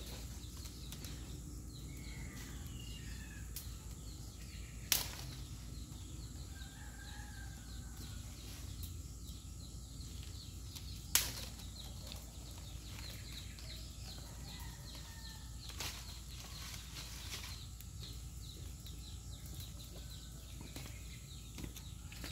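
Fresh green leafy branches rustling as they are stuffed into a cinder-block rocket stove, with two sharp cracks about five and eleven seconds in. A steady low hum runs underneath.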